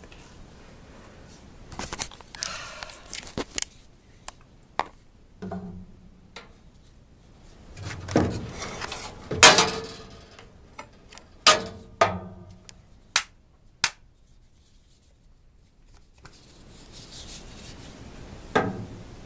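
Handling noise: scattered knocks, clicks and short clattering rattles at irregular intervals, with a quiet stretch of about two seconds near the three-quarter mark.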